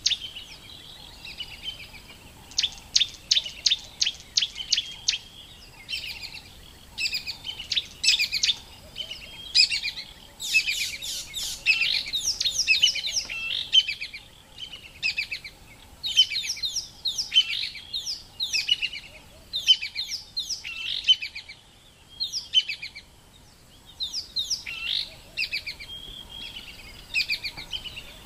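High-pitched chirping calls in quick runs, many of them short falling notes, coming and going throughout, with a fast train of clicky chirps a few seconds in.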